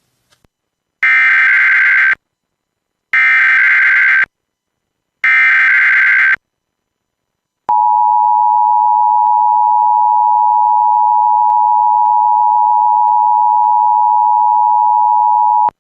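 Emergency Alert System test tones: three one-second bursts of SAME header data tones, then the two-tone EAS attention signal held steady for about eight seconds before cutting off suddenly.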